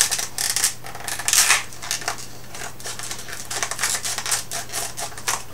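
Plastic packaging of a flashlight being handled and worked open, giving a quick irregular run of crinkles and sharp clicks.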